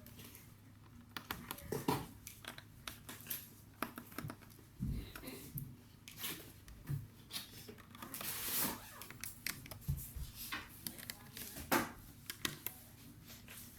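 Hands working on a laptop: a string of small, irregular plastic clicks and taps, with a short scraping rustle about two thirds of the way through.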